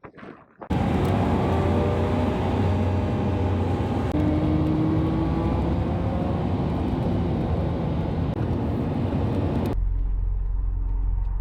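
Car on the move, its engine running under steady road and wind noise. The sound cuts in abruptly about a second in and switches sharply near the end to a lower, quieter rumble.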